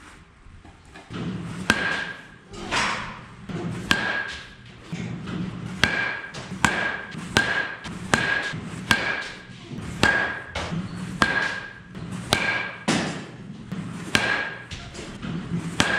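A 2021 Louisville Slugger Meta composite baseball bat hitting balls, a quick run of about twenty sharp cracks starting about a second and a half in. Most hits leave a short high ring.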